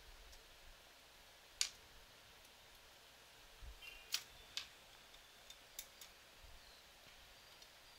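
Scattered sharp clicks and taps, about half a dozen, from nuts, bolts and tools handled on a robot kit chassis as its bolts are tightened.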